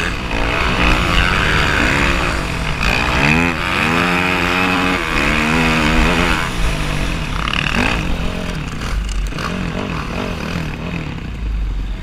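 Dirt bike engine revving, its pitch rising and falling again and again as the rider works the throttle through the gears across the sand dunes.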